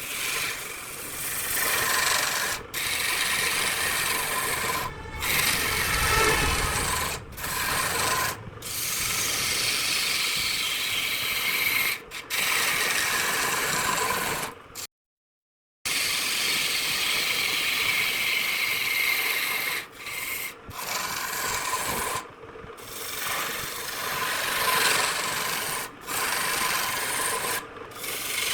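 Tool rubbing and rasping against wood spinning on a lathe: a steady scraping hiss, broken by brief dropouts every few seconds and a second of silence about halfway through.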